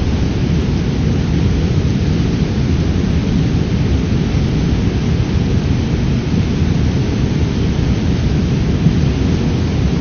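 Waterfall and river rapids rushing: a loud, steady, deep roar of falling and tumbling water.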